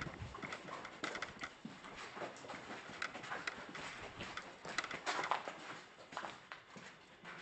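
Footsteps on a concrete tunnel floor: irregular taps and scuffs, with a longer scraping scuff about five seconds in.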